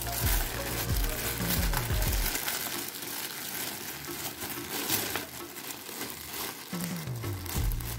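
Clear plastic packaging bag crinkling and rustling as hands pull it off a new backpack. Background music with a bass line plays under it for the first couple of seconds and again near the end.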